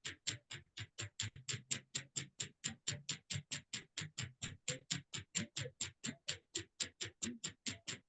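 Steady, evenly spaced ticking at about four ticks a second.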